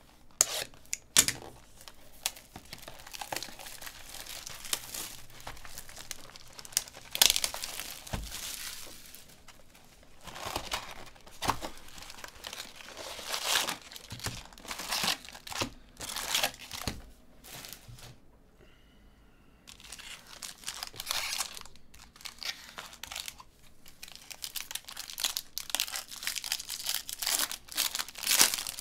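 A cardboard trading-card box being opened by hand and a foil card pack crinkled and torn open: irregular bursts of crinkling and tearing, with a short quieter pause about two-thirds of the way through.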